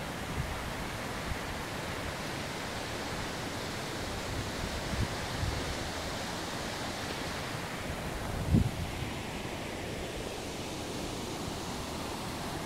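Steady rush of a mountain stream tumbling down a rocky cascade. A few low thumps break through, the strongest about two-thirds of the way in.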